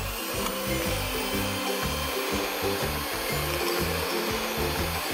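Electric hand mixer running steadily, its twin beaters whisking a thin batter in a glass bowl. Background music with a steady beat plays underneath.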